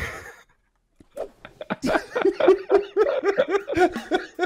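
Two men laughing heartily. After a brief silence the laughter starts about a second in and runs on as a quick string of repeated 'ha' pulses.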